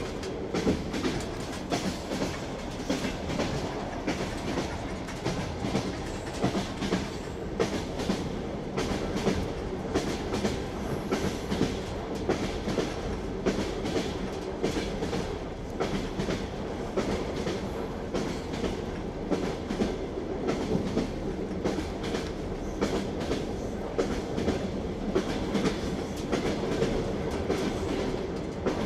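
Train wheels clicking over rail joints in a steady clickety-clack, over the continuous rumble of a moving railway carriage.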